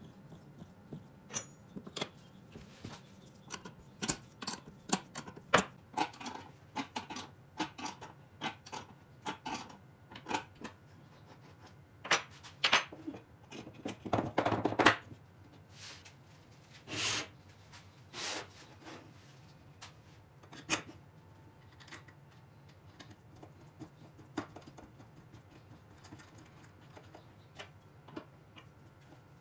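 Handling noise of a wooden roller being assembled: scattered clicks and knocks of pine parts and a metal nut and washer on a threaded rod. The knocks come most thickly and loudest in the middle, with a couple of longer scraping knocks, and thin out to occasional faint clicks towards the end.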